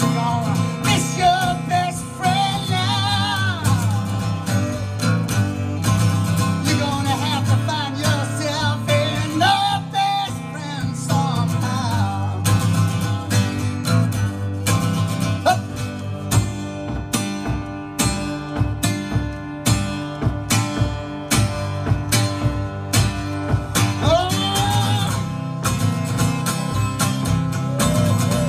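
Strummed steel-string acoustic guitar playing an instrumental break in a steady rhythm, with a few brief wordless vocal phrases over it.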